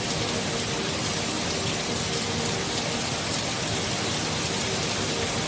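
Heavy rain pouring down on leafy trees: a dense, steady hiss with no music.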